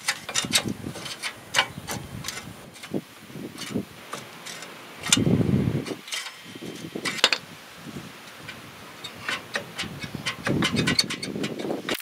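A hand ratchet clicking in quick runs as the bolts of a Ford F-350 front wheel hub bearing are backed out. Twice it gives way to a longer, duller stretch of handling noise.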